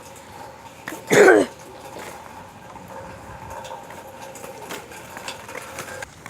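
A short, loud vocal sound from a person about a second in, falling in pitch, over a faint steady hum.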